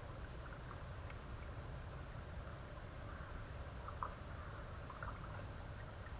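Faint, steady outdoor background noise with a low rumble, broken by a few soft short ticks about four and five seconds in.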